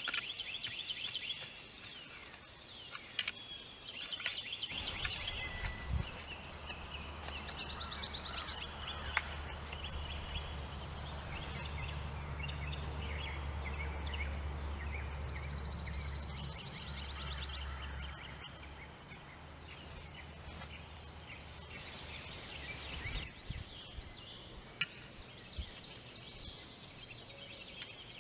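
Birds chirping and trilling repeatedly over outdoor background noise. A low steady hum comes in about five seconds in and fades out a few seconds before the end, with a few scattered clicks.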